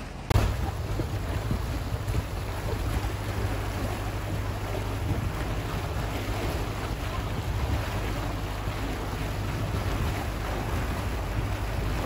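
Motorboat under way at speed: a steady low drone with the rushing of its churning wake and wind buffeting the microphone.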